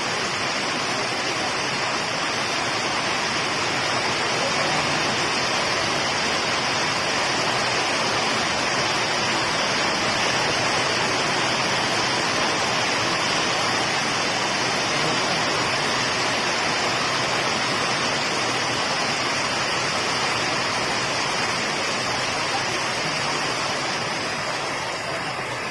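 Steady rain falling on a road, puddles and fields: an even, continuous hiss that drops slightly near the end.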